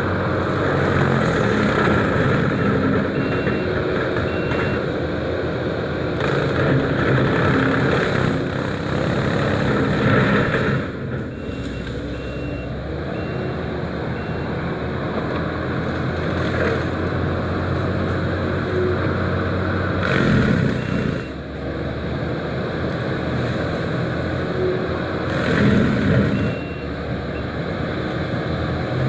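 Kubota SVL95-2S compact track loader's diesel engine running hard with a Diamond mower attachment, the level swelling and dipping as it works. Its backup alarm beeps in short runs several times as it reverses.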